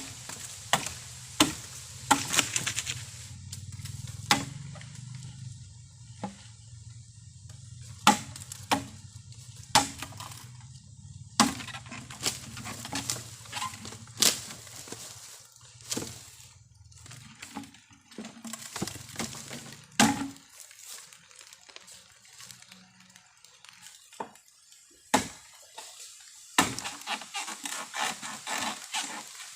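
Bamboo being chopped: irregular sharp strikes, some single and some in quick runs of two or three. A low steady rumble sits underneath and drops away about twenty seconds in.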